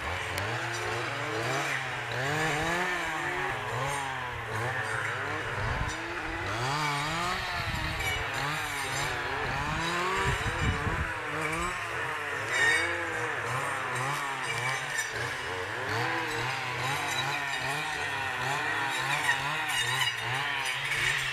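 Two-stroke clearing saws (brush cutters) clearing brush under a power line, their engines revving up and falling back over and over as they cut, with more than one saw running at once.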